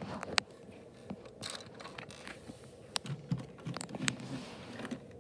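Plastic LEGO pieces clicking and knocking as a hand handles them on a wooden tabletop: a scatter of light, irregular clicks with a few soft thumps in the second half.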